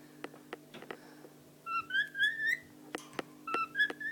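Cockatiel whistling two short phrases of rising notes, the first about halfway in and the second near the end, answering the owner's hummed tune. A few faint ticks come before the whistling.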